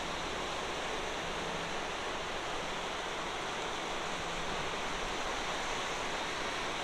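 Floodwater river in spate, rushing and churning through rapids under a bridge: a steady, unbroken rush of water. The river is running high and fast, swollen with rain and rising.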